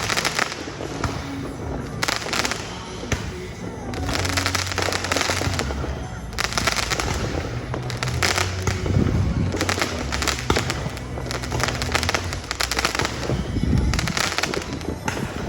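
Fireworks going off in a rapid crackle of pops that surges and eases several times.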